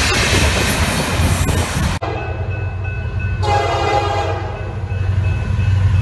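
Freight cars rolling past with a loud, steady rumble and rattle of wheels on rail. After a sudden cut, a Norfolk Southern diesel locomotive approaches over a low engine rumble and blows its multi-chime air horn once for about a second and a half, about three and a half seconds in, sounding for a road grade crossing.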